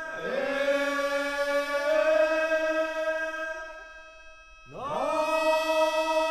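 Ritual chant accompanying a kagura dance: a long held tone that slides up in pitch at its start, fades out about four seconds in, then a second held tone begins with the same upward slide.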